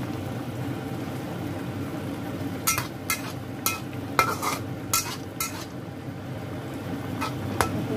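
Metal ladle stirring a boiling coconut-milk fish and vegetable curry in a wok, over a steady low hiss. From about three seconds in the ladle knocks against the pan in a string of sharp clinks, roughly one or two a second.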